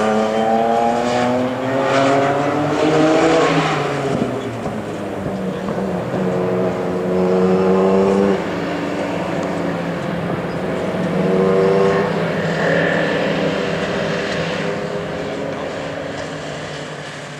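Historic touring race car engines at high revs: one climbs in pitch as it accelerates over the first few seconds, then more cars follow with steady engine notes, the sound growing fainter toward the end.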